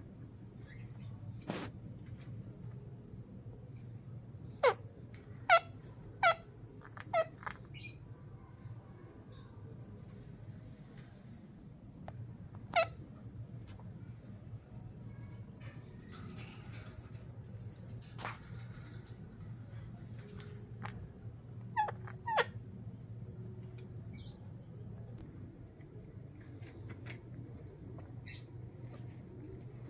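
Short, sharp screeching calls of ringneck parakeets: a quick run of them about five seconds in, one more near the middle and a pair later. Under them runs a steady, high-pitched insect chirring.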